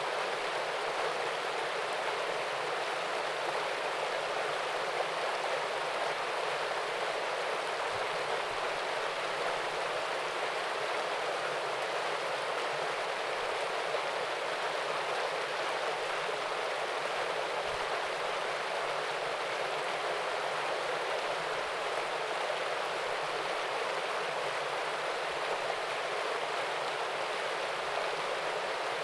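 Small waterfall and stream running: a steady, even rush of flowing water that does not change.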